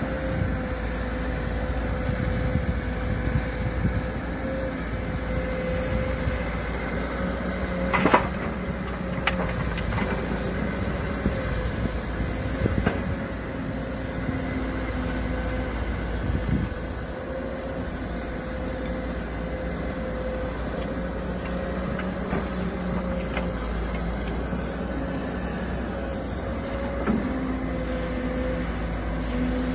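Kobelco crawler excavator's diesel engine running steadily under load with a constant whine as the arm and bucket work a dirt bank. A sharp knock comes about eight seconds in, with a few lighter knocks later.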